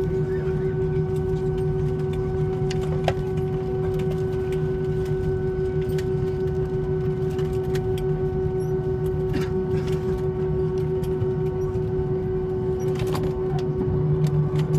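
Cabin noise of an Airbus A320neo rolling out on the runway after landing, heard from a window seat over the wing: a steady engine drone with a constant tone over a low hum, and a few faint clicks and rattles. The low hum grows louder near the end.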